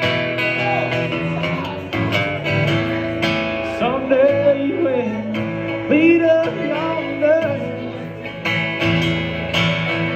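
Steel-string acoustic guitar strumming a slow country ballad's chords during an instrumental break between verses, with a voice briefly heard over it midway.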